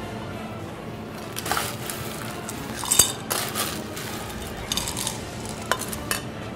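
Ice cubes clinking against glass and a metal ice bucket as serving glasses are scooped full of ice: a string of sharp clinks, the loudest about three seconds in.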